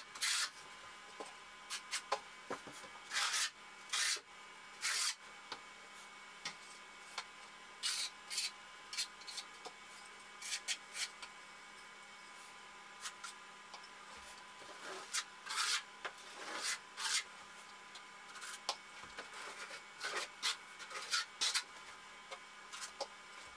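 Steel trowel scraping thin-set mortar onto cement board, in short, irregular strokes with pauses between them.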